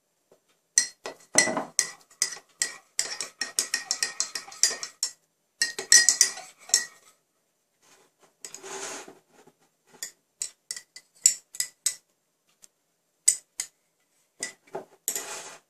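A metal spoon clinking against a ringing cup, in quick runs of clinks and single taps, as when stirring tea; a short soft scraping hush comes about halfway through.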